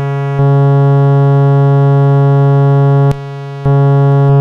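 A steady low sine test tone driven hard through a high-gain TL071 op-amp boost with clipping diodes, heard as a buzzy, clipped tone thick with overtones. It jumps louder with a click about half a second in, drops quieter with a click around three seconds, and comes back louder with another click half a second later, as the clipping-diode selection is switched; one more click follows near the end.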